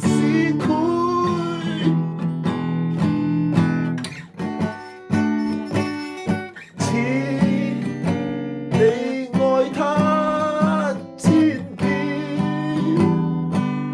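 Acoustic guitar music, plucked and strummed, with a voice singing over it in places.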